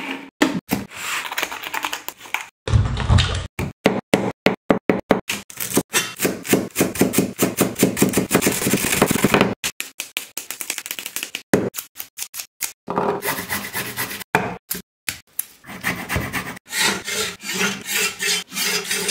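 Close-miked kitchen prep sounds in quick succession. A mixer grinder runs for under a second near the start. Then comes a long run of rapid rubbing, rustling and scraping strokes as fresh herbs are handled and chopped with a knife on a wooden cutting board.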